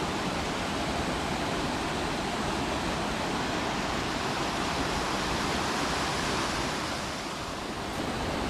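Rushing water of a waterfall and mountain stream, a steady, even noise that dips slightly about seven seconds in.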